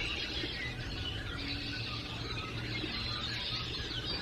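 A dense, continuous chorus of many birds calling at once, mostly red-winged blackbirds with European starlings: overlapping chirps, squeaks and whistled glides.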